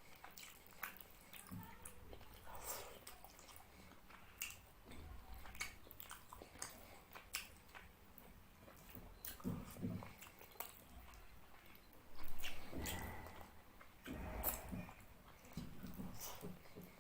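Close-up eating sounds of fish curry with rice: wet chewing with many small mouth clicks, loudest about twelve seconds in.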